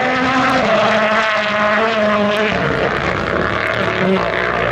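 Rally car engine running hard at a loud, steady pitch; the note steps down about half a second in, then wavers and falls lower in the second half.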